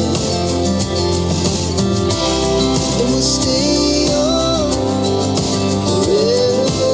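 Pop song played at full volume through a Minirig portable Bluetooth speaker paired with a Minirig Subwoofer 3: an instrumental passage with steady bass and sustained notes, loud and continuous.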